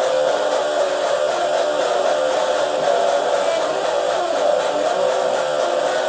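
Electric guitar being played without a break, a dense and steady sound with no pauses.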